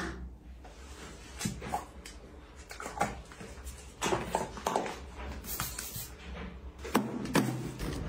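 Hands sloshing, squeezing and rubbing a wet cloth in a plastic basin of water: irregular splashes, swishes and drips. A couple of sharp clicks near the end.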